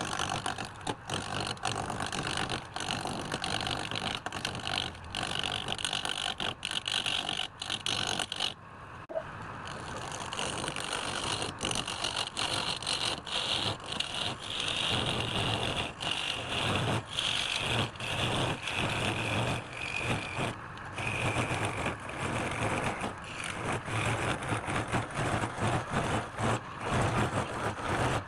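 Woodworking power tool running and cutting into wood, a rough continuous noise with many sharp clicks and a whine that shifts in pitch, broken off briefly about eight and a half seconds in.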